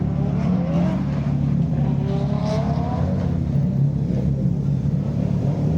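Car engine revving, its pitch rising and falling over a steady low engine drone.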